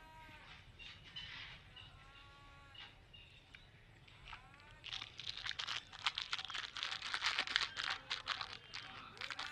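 A few short arched calls from birds, then from about five seconds in a rapid, dense crinkling rustle as something small is handled.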